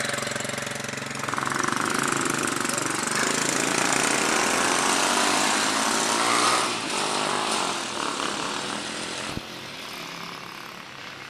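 Small motorbike engines running and revving, the rattly engine note rising and falling in pitch. It is loudest in the middle and fades over the last few seconds as the bikes pull away.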